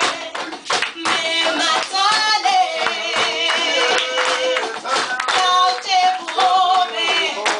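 A woman singing into a microphone, her voice wavering in pitch, while a group of people clap along.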